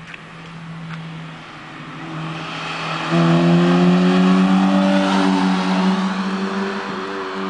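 Honda Civic's engine and exhaust pulling under acceleration: a steady hum builds, gets much louder about three seconds in, and climbs slowly in pitch before easing off near the end.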